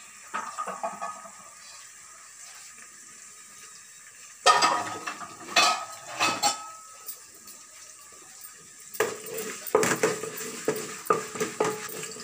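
Wooden spatula scraping and knocking against a metal pot as onions and ginger-garlic paste are stirred and fried. A brief clatter at the start, then two bouts of vigorous stirring, about four seconds in and again from about nine seconds on.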